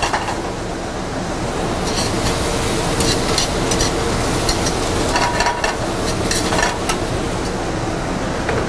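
Vegetables sizzling steadily as they sauté in oil in a stainless steel pan on a gas burner. A spoon stirs them, scraping and clicking against the pan a few times.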